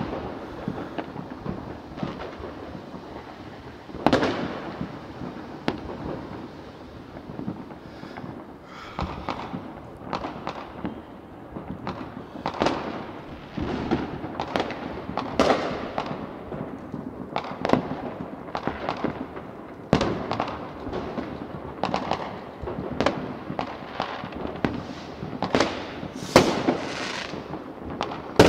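New Year's Eve fireworks and firecrackers going off: many irregular bangs and cracks, each followed by a ringing echo, coming thicker after about eight seconds.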